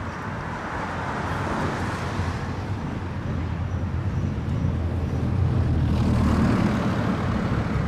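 Metre-gauge steam train approaching slowly, a low rumble that grows steadily louder, mixed with road traffic noise.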